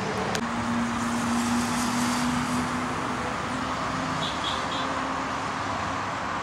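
Steady roar of road traffic, with a faint hum under it. Three quick high chirps come about four seconds in.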